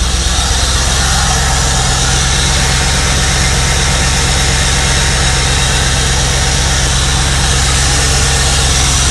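1994 Chevrolet Camaro Z28's V8 idling steadily.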